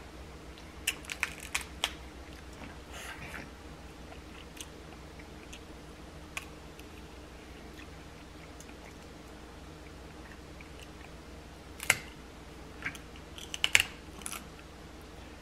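Boiled crab leg shells being cracked and picked apart by hand, with chewing. There are sharp little cracks and snaps, a few about a second in and a louder cluster near the end, over a faint steady hum.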